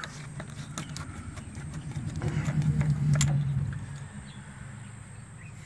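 A low vehicle-engine hum that swells about two seconds in and fades again by four seconds, with a few sharp clicks from hand-tool work on an intake-tube hose clamp.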